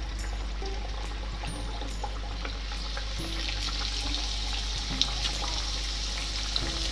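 Puris (rava and maida dough discs) deep-frying in hot oil: a steady sizzling hiss with small crackles, getting a little fuller from about the middle as more discs go into the oil.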